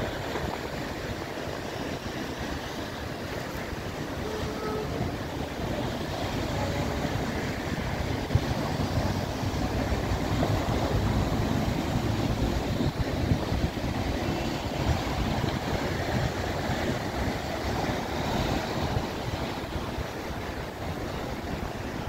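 Sea waves washing and breaking against a rocky shore, a continuous surf noise, with wind buffeting the microphone.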